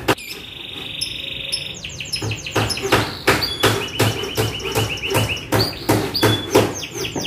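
Young canary singing in a cage: a fast rolling trill first, then from about two seconds in a run of sharp, clicking notes about three a second, mixed with short trills and falling chirps.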